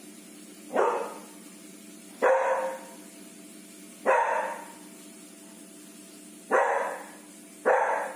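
Dog barking: five loud single barks, each sharp at the start and fading quickly, unevenly spaced with the last two closer together. Alert barking at something outside the gate.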